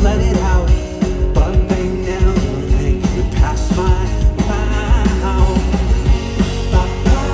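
Live indie rock band playing with drums, bass and electric guitars, with a voice singing over it.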